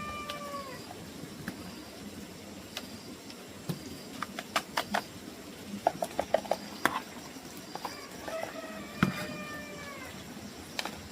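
An animal call, drawn out for about a second, fading out just after the start, then a similar call about eight seconds in. In between comes a run of sharp clicks or taps.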